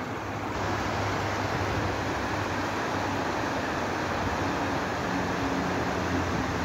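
Steady rushing of a fast, shallow river running over rocks and riffles, with a faint low hum underneath.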